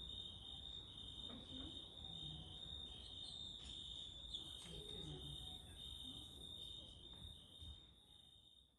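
Crickets chirping: a steady high trill with a pulsed chirp about twice a second, faint, fading out near the end.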